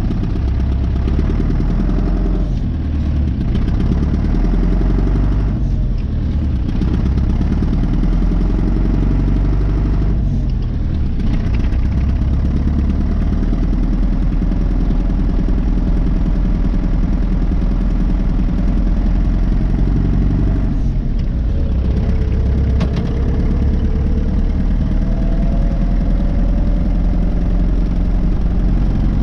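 Loader tractor's engine running steadily as the tractor drives, easing briefly a few times, with a whine that rises slowly in pitch over the last several seconds.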